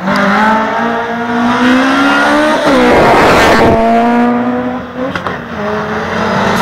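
Subaru Impreza rally car's turbocharged flat-four revving hard as it approaches at speed. The pitch climbs and drops several times through gear changes, with a rough rushing burst of noise about three seconds in.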